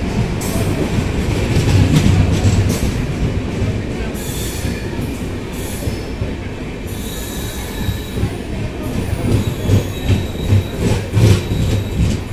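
LHB passenger coaches of an arriving express rolling past at a platform: a steady rumble of wheels on rail with high squeals from the wheels. In the last few seconds a rhythmic clatter of about two knocks a second as the bogies cross rail joints.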